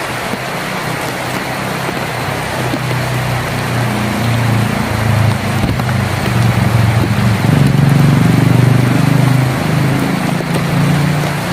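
Heavy rain drumming on a tin roof as a steady hiss, with a low rumble that swells from about four seconds in, peaks near eight seconds, then eases.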